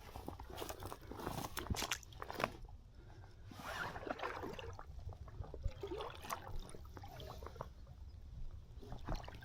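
Wading boots crunching and scraping on riverbed stones and gravel with some sloshing of water, as an angler steps carefully down into a river.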